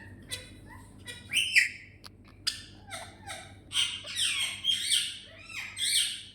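Pet parrot giving a quick run of chirps, squawks and short whistles, some gliding in pitch, sparse at first and almost unbroken over the last few seconds.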